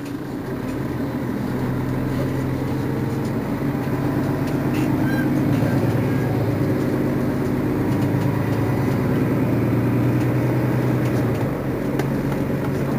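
Mercedes-Benz Citaro G C2 articulated city bus standing still with its engine idling, a steady low hum that swells a little over the first couple of seconds and then holds.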